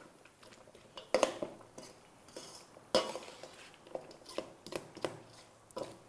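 A metal spoon stirring and tossing diced cucumber and tomato salsa in a stainless steel mixing bowl: irregular clinks and scrapes of the spoon against the bowl, a few each second.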